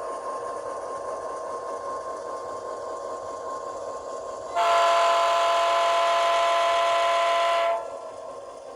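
HO-scale model locomotive's SoundTraxx DCC sound decoder playing diesel engine sound through a small twin speaker, with one multi-tone air-horn blast from about four and a half seconds in, lasting about three seconds and stopping sharply.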